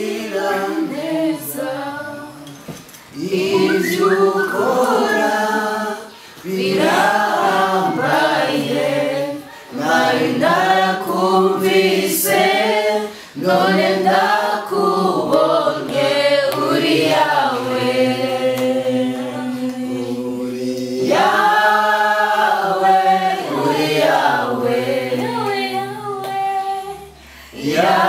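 A small mixed group of men and women singing a worship song together without instruments, in sustained phrases with short pauses for breath between them.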